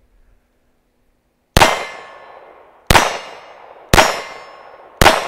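GSG 1911 .22LR pistol firing four single shots of CCI Mini Mag ammunition, starting about a second and a half in and coming roughly a second apart. Each sharp crack is followed by a metallic ring that fades away.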